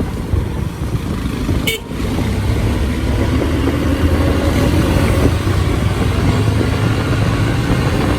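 Honda XR150L single-cylinder motorcycle engine running under way, with road and wind noise; the sound dips briefly about two seconds in, then the engine note rises and holds steady.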